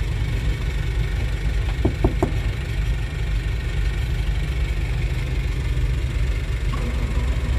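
Caterpillar 320D excavator's C6.4 diesel engine cranking and starting, with a steady rumble that settles into running from about seven seconds in. It is a start after a faulty fuel rail pressure sensor had kept the engine from starting.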